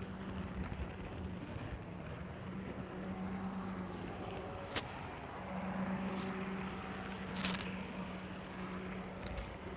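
N-scale model train running along its track, its small electric motor humming steadily, with a few sharp clicks along the way.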